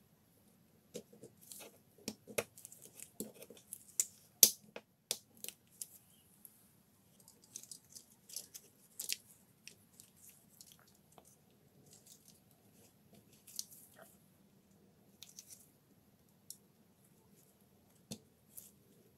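Irregular clicks, taps and small scraping sounds of plastic parts and wires being handled and pressed into a DeWalt drill's plastic housing during reassembly. They are dense in the first half, with the loudest click about four seconds in, and sparser after that.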